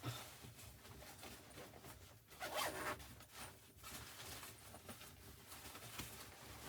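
A zipper being pulled in short strokes, the longest and loudest about two and a half seconds in, over a quiet background.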